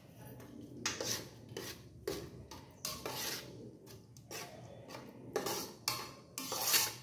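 A slotted metal spatula stirs and scrapes in the metal inner pot of an electric rice cooker, mixing milky vermicelli payasam. The stirring starts about a second in and makes about a dozen uneven scrapes.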